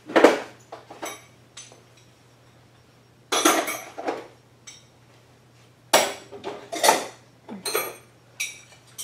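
Small metal parts and hand tools clinking and knocking as they are handled and set down on a workbench: a string of separate sharp clinks, some with a short metallic ring.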